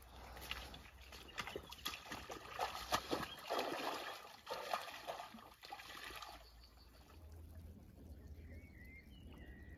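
Water splashing and sloshing as a person wades into a shallow lake in chest waders, irregular steps churning the water for about six seconds before it goes quieter.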